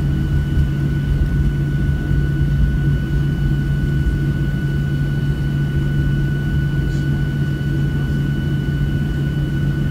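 Cabin noise of a Boeing 737-700 taxiing with its CFM56-7B engines at idle: a steady low rumble and hum, with a thin steady high whine above it.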